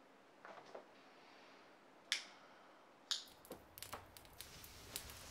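A few scattered sharp clicks, then from about three seconds in a low rumble with rapid crackling, a fire sound effect that grows denser.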